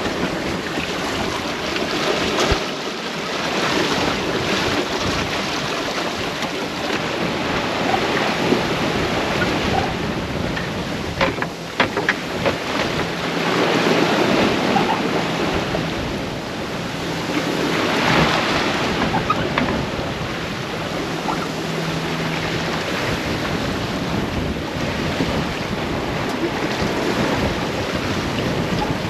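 Wind blowing on the microphone and water rushing along a sailboat's hull as it broad reaches in strong wind, the rush swelling louder now and then, with a few short knocks about eleven seconds in.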